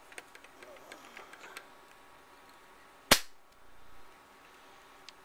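The rifle's external hammer is worked with a few light mechanical clicks, then drops with one sharp metallic snap about three seconds in on the empty chamber, a dry fire rather than a shot.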